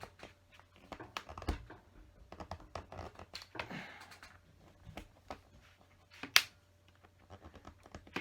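Plastic LEGO bricks being handled and pried apart: irregular small clicks and scrapes, with one sharper snap about six seconds in.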